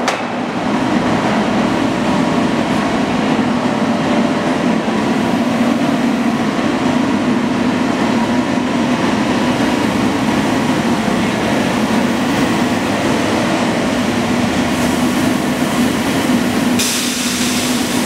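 Automatic cut-to-length line for stainless and galvanised steel sheet running: a steady mechanical noise with a low hum as the sheet feeds through the rollers and along the conveyor. A hiss joins near the end.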